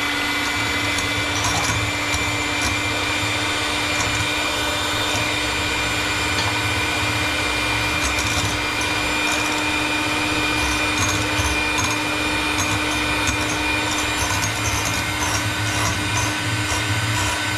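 Electric hand mixer running steadily at one speed, its beaters whipping egg whites in a glass measuring cup.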